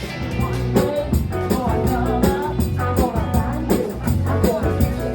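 Live band playing upbeat rock and roll, with drums keeping a steady beat under bass, guitar and a singing voice.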